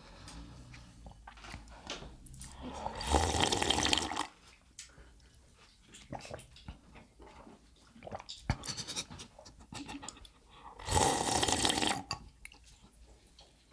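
Two long, loud slurps of udon noodles and miso soup, each about a second long, one around three seconds in and one around eleven seconds in. Small wet clicks and smacks of eating come in between.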